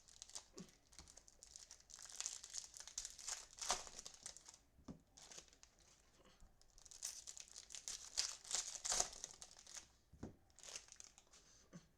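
Packs of 2021 Topps Series 1 baseball cards being ripped open by hand, their plastic wrappers tearing and crinkling in two bouts of rustling.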